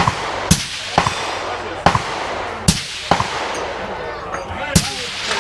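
Gunfire on a shooting range: about seven sharp shots at uneven intervals, some close together, from more than one gun.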